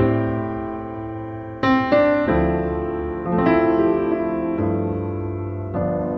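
Soft background piano music, with a new chord struck about every second and each left to ring and fade.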